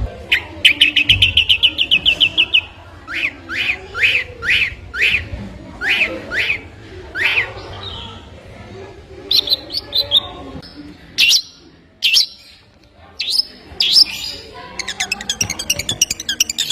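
A songbird singing: a rapid trill of a dozen or so quick notes, then a run of downward-sliding whistled notes about two a second, then scattered sharp high notes, and another fast trill near the end.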